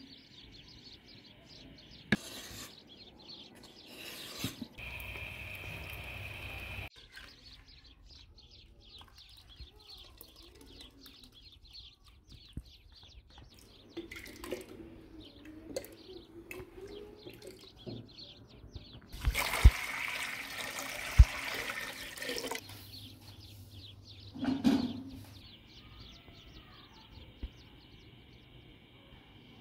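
Food-preparation sounds: liquid pouring and splashing in a stretch a little past the middle, and a few sharp knocks. Birds chirp in the background.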